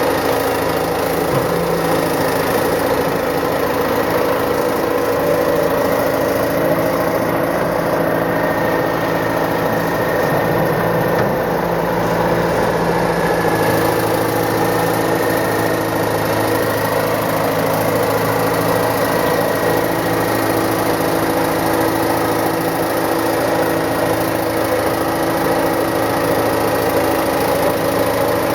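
Caterpillar 955 track loader's diesel engine running steadily, with a slight change in its low hum about halfway through.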